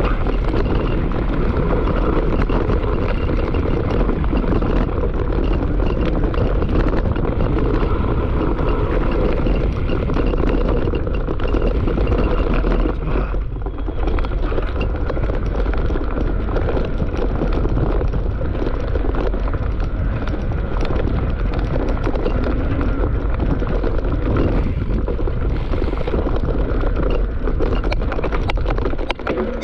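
Mountain bike riding down a dirt forest trail: steady rush of wind and tyre noise, with constant small clatters and knocks from the bike over the bumps. The noise eases briefly about halfway through.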